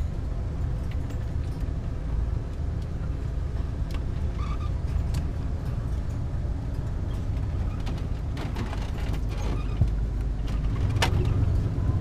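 A van driving slowly, heard from inside the cab: a steady low engine and road rumble that grows a little louder near the end.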